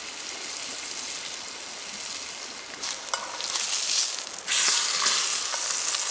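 Steak sizzling in a hot cast-iron skillet, a steady hiss. About three seconds in, metal tongs click against the pan as the steak is turned, and the sizzle suddenly gets louder once it lands on its unseared side.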